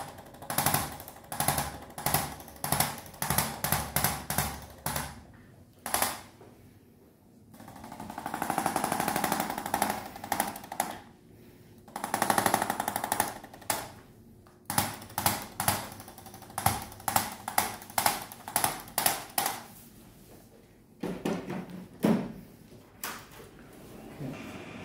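A handheld electric chiropractic adjusting instrument firing rapid trains of percussive taps against the spine. It comes in many short bursts, about two a second, with two longer runs of about three seconds in the middle.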